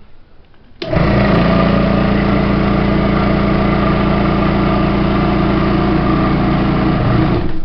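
A machine motor switches on suddenly and runs steadily with a low hum and a loud mechanical whirr for about seven seconds, then cuts off abruptly.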